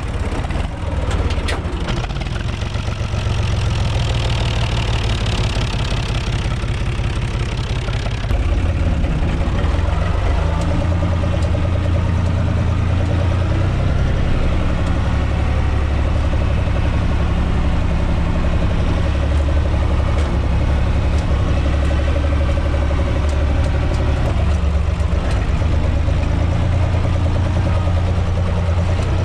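UTB 445 tractor's three-cylinder diesel engine running, heard from inside the cab just after starting. It runs unevenly for the first several seconds. About eight seconds in the note rises to a louder, steady run as the tractor drives off.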